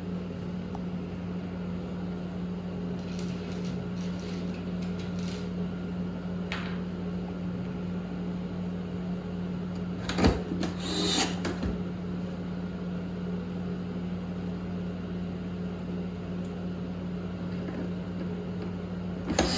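Handling noise from work on a pressure washer's housing and its screws over a steady low hum: a few faint clicks, then a sharp knock about ten seconds in followed by a short scraping rattle.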